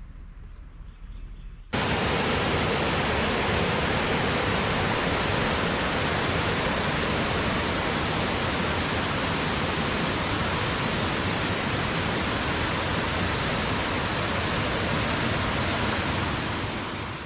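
Creek water rushing, a loud steady rush that cuts in suddenly about two seconds in and fades away near the end.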